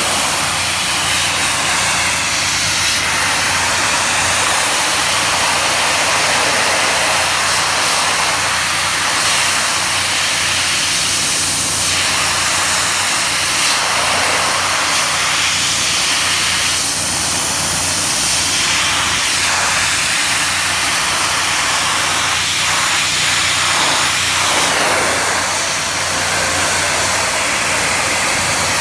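Pressure washer running, its water jet giving a loud, steady hiss over a constant low motor hum as it blasts away pigeon droppings.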